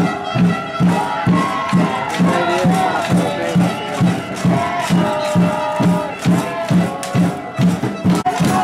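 Music with a steady, fast drum beat, nearly three beats a second, under a melody line.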